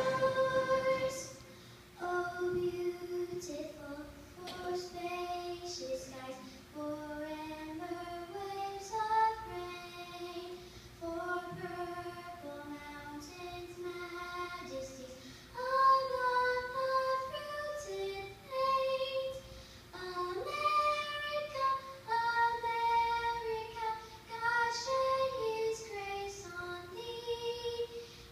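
A ten-year-old girl singing a patriotic song solo, in phrases with short breath pauses, over electric keyboard accompaniment.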